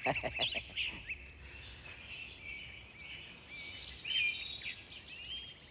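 Birds chirping: a scatter of short rising and falling calls and a brief trill, over a faint steady background hiss.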